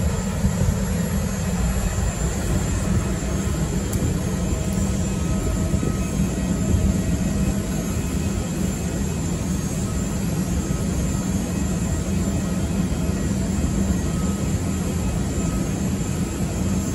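Loud, steady jet noise from airliners on the apron: a continuous drone with a strong low hum that does not change.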